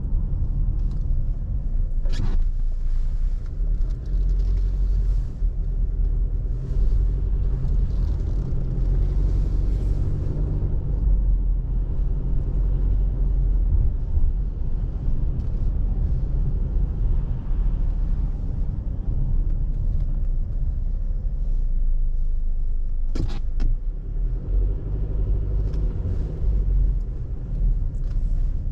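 A car driving along a road: steady low engine and road rumble, with a sharp click about two seconds in and another near the end.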